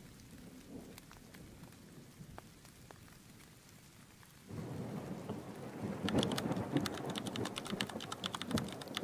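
Recorded thunderstorm ambience: faint steady rain at first, then about halfway through a roll of thunder swells in, rumbling low with rapid crackling.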